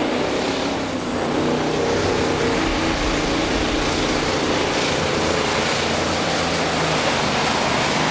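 1984 Mack Superliner pulling truck's four-turbocharged 998-cubic-inch V8 diesel running flat out under load as it drags the pulling sled: a loud, steady engine noise with a thin high whine over it.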